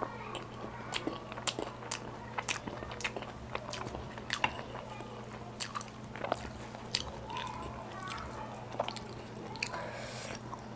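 Close-miked chewing and biting of Indian food, with many sharp, irregular crunchy and wet mouth clicks over a steady low hum.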